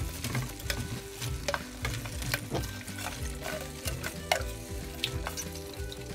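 Shell-on marinated shrimp being dropped by hand into a pan of hot tomato sauce, which sizzles, with frequent sharp clicks and taps as shrimp and the steel bowl knock against the pan.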